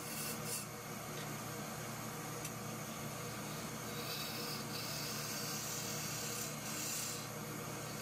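Wood lathe running with a steady motor hum while a turning tool cuts the spinning wooden lid blank: a few short scraping cuts in the first half-second, then two longer cutting passes about four and six and a half seconds in.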